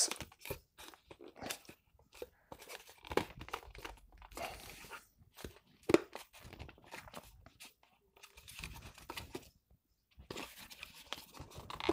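Plastic Provent 200-style oil catch can housing being handled and pressed together as the filter insert, padded with a ring of silicone tube, is pushed into its seat: irregular scraping, creaking and small clicks, with one sharper knock about six seconds in.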